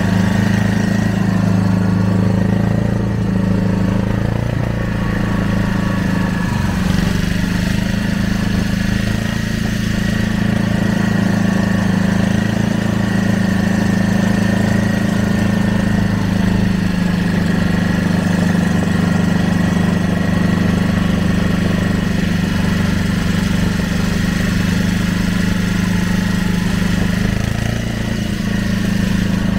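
Inboard or outboard motor of a small wooden riverboat running steadily underway: an even, low drone that holds one pitch, with a slight wavering around a quarter of the way in.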